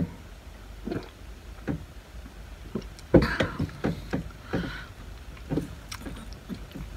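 Close mouth sounds after a drink from a cup: gulps, lip smacks and breaths in short, irregular bursts, the loudest about three seconds in, after a sharp click at the start.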